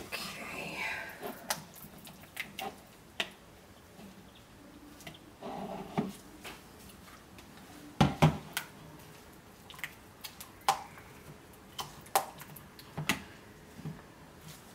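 Scattered clicks and knocks of utensils against soap-making containers, with two louder knocks about eight seconds in.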